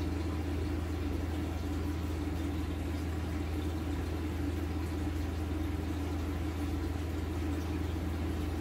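An aquarium air pump hums steadily and evenly, with air bubbling up through the tank water.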